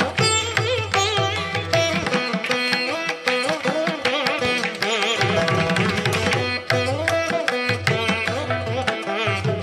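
Background Carnatic instrumental music: a string melody with gliding pitch bends over light percussion.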